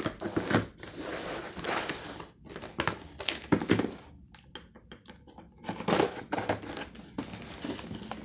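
Packaging being torn open and unwrapped by hand: irregular crinkling, tearing and rustling of wrapping, with scattered clicks and knocks, quieter for a second or so around the middle.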